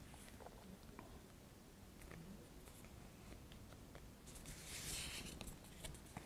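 Faint rustle of stiff paper as a lift-the-flap in a picture book is lifted, about four to five seconds in, with a few small ticks of fingers on the page; otherwise near silence.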